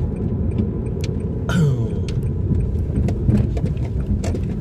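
Honda Amaze car heard from inside the cabin while driving slowly: a steady low engine and road rumble, with a few faint clicks. A short, sharper noise with a falling pitch comes about a second and a half in.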